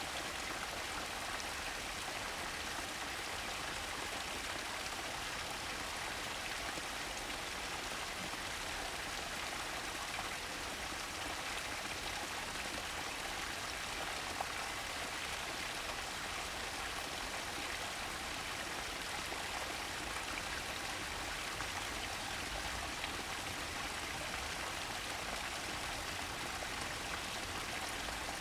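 Mountain stream flowing: a steady, even rush of running water.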